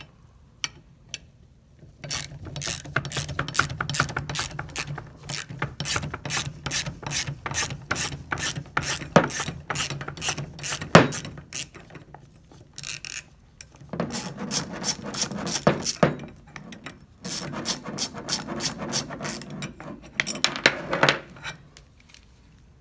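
Socket ratchet clicking as it backs out the bolt holding the sprocket on a seed meter roller. Two long runs of rapid, even clicks with a short pause between.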